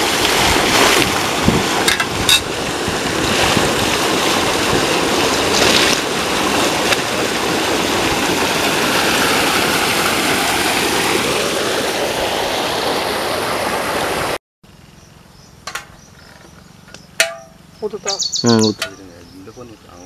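Water gushing steadily from an irrigation pipe into an earthen channel, with splashing from hands washing in the flow. It cuts off suddenly about fourteen seconds in, leaving quiet outdoor ambience with a few bird chirps.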